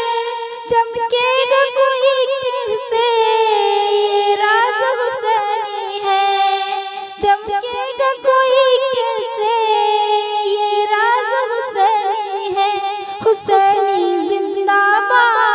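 A high female voice singing a naat, holding long notes that bend and waver.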